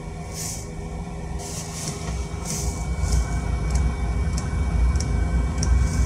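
Chinese diesel air heater firing up: a low burner rumble builds from about two seconds in as the fuel lights, while the fuel dosing pump starts ticking, a little under two ticks a second.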